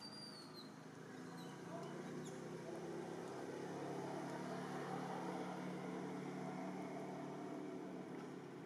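Steady drone of a distant motor engine, growing louder over the first couple of seconds and easing off near the end. A short high falling chirp sounds right at the start.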